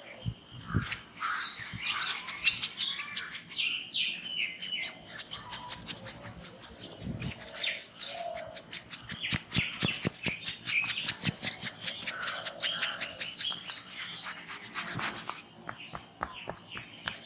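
Hands working a head massage: a fast run of sharp taps, several a second, that stops about fifteen seconds in. Small birds chirp throughout, with one short falling call repeating every couple of seconds.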